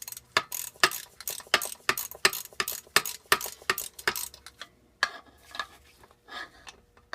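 1/4-inch drive ratchet clicking in quick, regular strokes, about three a second, as it backs out a bolt that has just broken loose; the clicks thin out after about four seconds.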